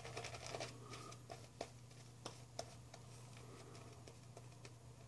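Faint crackle of a Ralf Aust 5/8 straight razor scraping stubble on the neck: a short scraping stroke at the start, then scattered light ticks, over a steady low hum.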